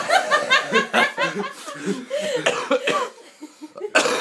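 A man coughing and laughing in quick bursts, set off by the burn of a naga chilli, with a harsh cough about four seconds in.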